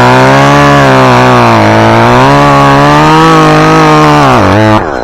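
Two-stroke chainsaw at full throttle cutting through the stem of a white spruce top: the back cut behind a face notch. The engine note wavers slightly under load, then the throttle is released near the end and it drops away.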